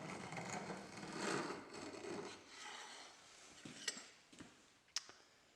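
Rubbing and scraping from a ground knife blank being handled on the workbench, with a couple of sharp taps near the end.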